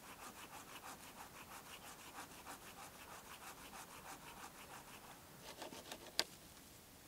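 Small hand saw cutting through a wooden pole in quick, even rasping strokes, about five a second, which thin out and stop after about five seconds. A single sharp knock near the end is the loudest sound.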